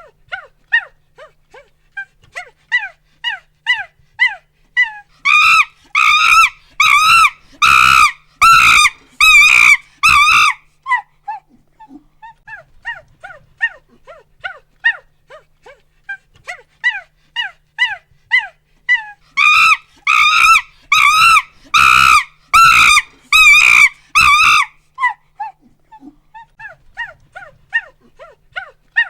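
Monkey hooting in a rapid series of short calls that grows into about five seconds of loud screams, then falls back to hoots. The same build-up and scream climax comes twice.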